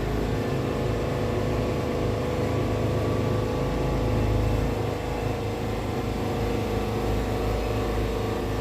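Wood-Mizer portable band sawmill running steadily, its engine and band blade sawing through a red cedar log.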